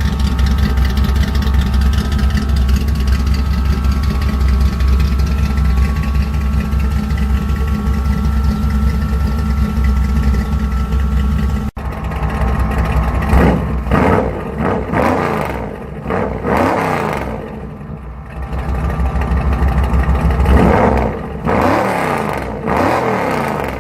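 A small-block Chevy 350 Vortec V8 with a small Lunati cam, running through dual Spintech Pro Street 6000 mufflers with short tailpipes still on, idles steadily. After a sudden cut about 12 seconds in, it is revved up and back down several times.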